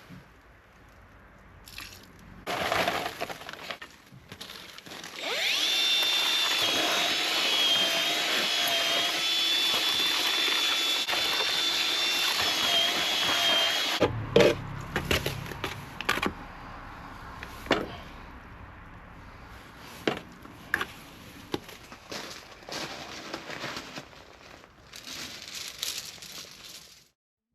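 A handheld power tool motor runs steadily with a high whine for about nine seconds, then stops and gives way to scattered knocks and clatter.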